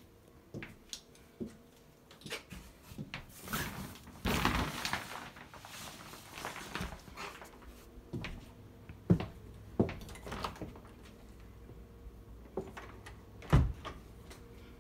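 Footsteps and phone-handling noise while walking through rooms with wooden floors: scattered knocks and clicks, a rustling stretch about four seconds in, and several sharp knocks in the second half, the loudest near the end.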